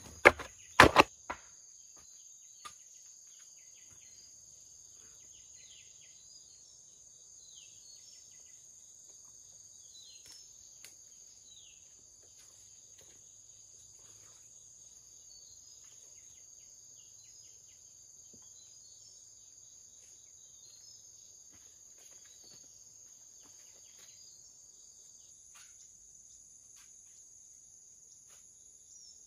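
Two heavy thuds in the first second as soil is tamped around a wooden post set in a hole. After that, a steady high-pitched drone of crickets, with a few short falling bird chirps.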